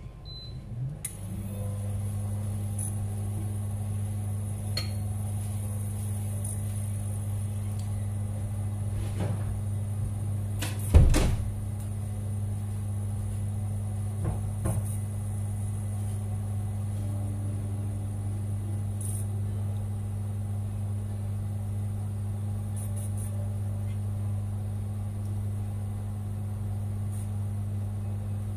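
Induction cooktop switched on about a second in, then humming steadily with a faint high whine as it heats a pan. A sharp knock about eleven seconds in and a few lighter clinks.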